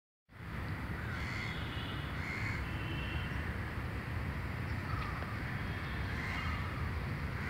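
Several short bird calls over a steady low outdoor rumble.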